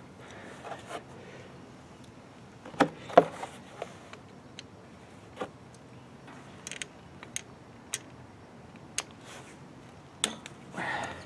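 A screwdriver and small screws clicking and tapping against the metal of a carburetor and its throttle-cable bracket as the bracket screws are taken out: scattered single ticks, with two louder knocks about three seconds in.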